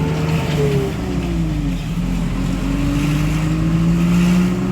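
Car engine running, its pitch falling until about two seconds in, then climbing steadily as the car accelerates, over a low road rumble.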